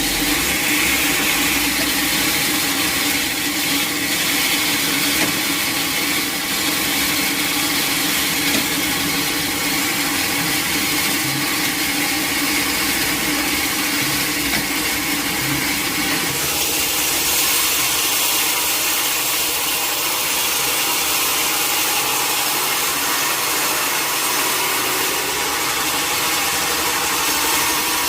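Sawmill machinery running steadily with a constant mechanical hum and hiss. About halfway through, the low hum drops away and a higher hiss grows stronger.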